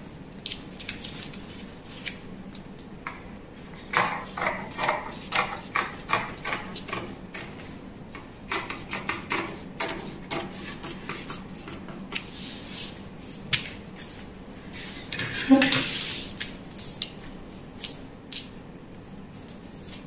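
Dressmaking scissors snipping through fabric along a pattern edge: a quick run of cuts at about two a second from about four seconds in, then more scattered snips. A louder rustle of handled fabric and paper comes about sixteen seconds in.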